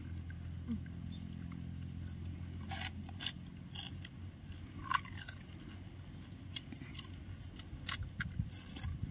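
Crisp crunches of pani puri shells being bitten and chewed: irregular short cracks roughly every half second to a second, over a low hum that fades in the first few seconds.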